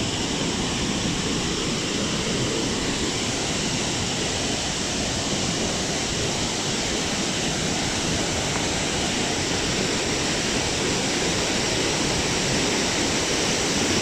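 Steady rush of white water: a waterfall-fed mountain stream pouring over boulders.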